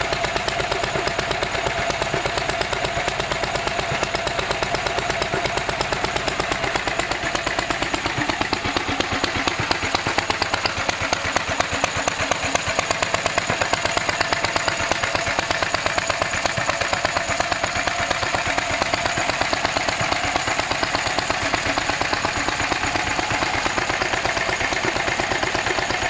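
Lister D single-cylinder stationary engine, radiator-cooled, running steadily with an even, rapid exhaust beat.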